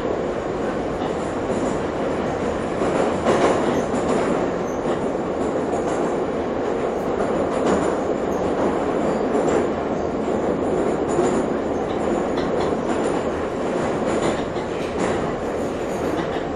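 Moscow Metro train in motion, heard from inside the carriage: a steady dense rumble of wheels and running gear, with faint knocks from the rail joints and a brief louder swell about three and a half seconds in.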